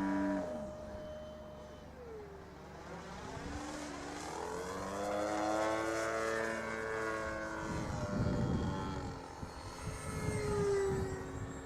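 MLD 35cc two-stroke petrol engine of a Seagull Edge 540 model aerobatic plane, turning a 20x8 propeller in flight. Its pitch slides down, then rises and falls again as the plane flies by and manoeuvres, and it is loudest in the middle. It is working hard.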